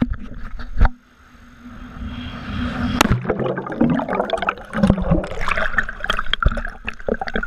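A camera plunges into a river pool: a loud rush about a second in, then muffled near-quiet under the water, building into bubbling, gurgling water and splashing as the swimmer comes back up.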